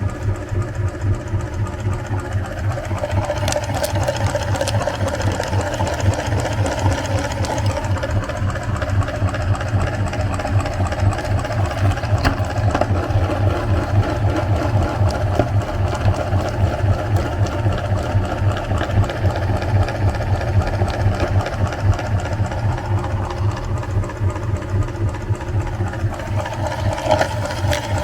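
Electric meat grinder running steadily, its motor giving a fast-pulsing hum.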